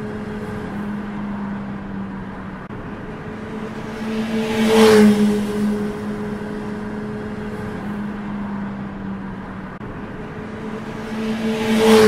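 Motorcycle passing fast. The engine note swells to a loud peak about five seconds in and drops slightly in pitch as it goes by, and a second pass builds near the end.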